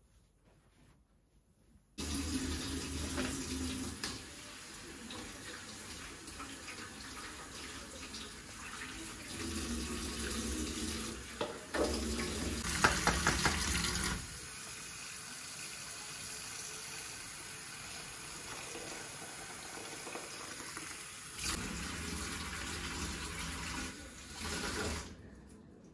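Water running from a tap into a sink, starting abruptly about two seconds in and stopping near the end. It grows louder for a couple of seconds midway, with a few knocks.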